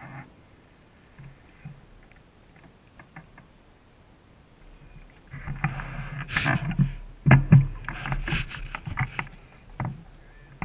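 Clicks, knocks and rattles from a bicycle being handled and set moving, picked up close by a camera mounted on its handlebars. The first few seconds are quiet, with a few small clicks; the louder rattling starts a little past halfway and lasts about four seconds.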